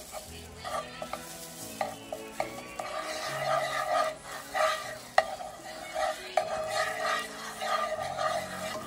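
Butter and olive oil sizzling in a hot skillet while a utensil stirs them, scraping the pan in repeated strokes about once or twice a second.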